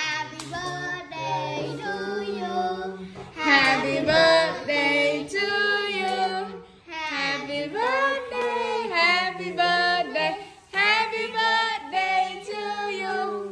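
A group of voices, a woman's and children's, singing a birthday song together in held phrases of a few seconds each.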